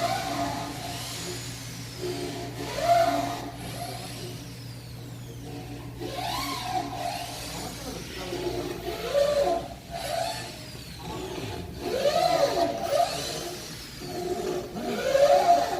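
Workshop machinery running: a steady low hum, stopping about two-thirds of the way through, under rising-and-falling whines that come about every three seconds.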